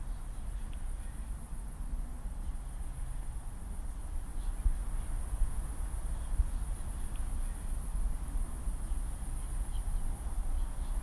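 A steady, high-pitched shrill drone with a fine pulsing texture over a deep low rumble, with a few faint ticks.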